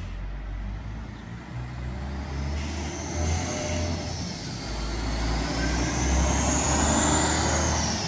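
A motor vehicle on the road going by over a low rumble, its noise swelling over several seconds and loudest near the end.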